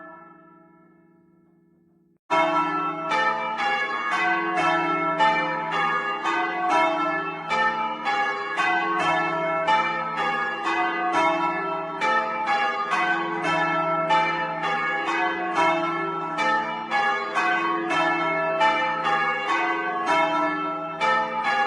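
A heavy ring of four church bells, hung for change ringing, heard close up in the belfry. For about two seconds the last strokes hum and die away, then the bells sound again in steady succession, about two to three strokes a second, each stroke ringing on under the next.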